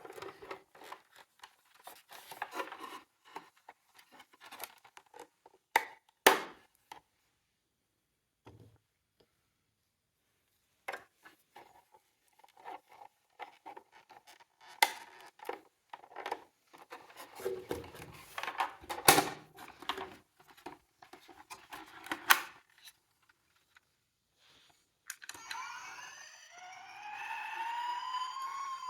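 Small toy cars being handled, with irregular plastic clicks, knocks and rattles and a few sharper knocks. Near the end a toy's electronic siren starts wailing, its pitch rising and falling.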